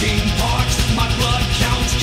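Loud, dense rock song with guitar and drums, generated by the Udio AI music tool.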